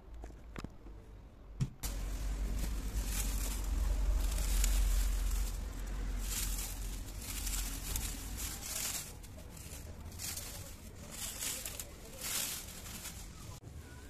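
Thin plastic bag being handled and filled with dried leaves, crinkling and rustling in repeated bursts, over a low rumble.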